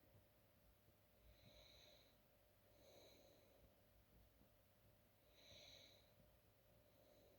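Faint hiccups, three of them, about a second and a half to two and a half seconds apart.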